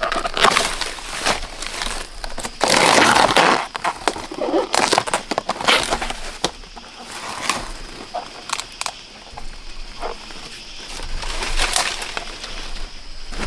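Irregular crunching and rustling with sharp snaps, loudest a few seconds in.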